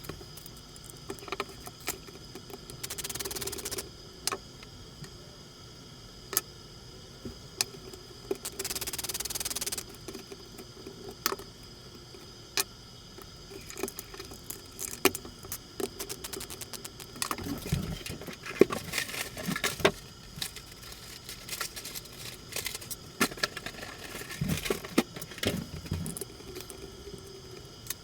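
Small plastic and metal parts of a radio-control car chassis clicking, tapping and rattling as it is taken apart by hand, with two short spells of hissing noise a few seconds in.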